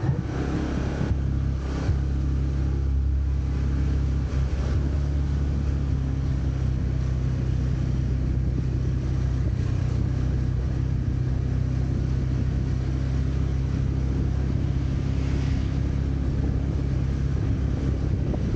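Motorbike engine running at a steady, even speed while riding, with a constant low hum and road noise.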